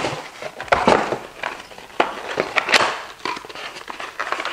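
Cardboard packaging handled: a white cardboard box slid and lifted out of a shipping carton, with scraping, rustling and a few sharp light knocks.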